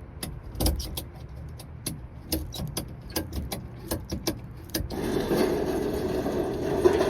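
A run of irregular sharp metallic clicks and rattles over a low rumble. About five seconds in, a steady, louder pickup-truck running and road noise takes over.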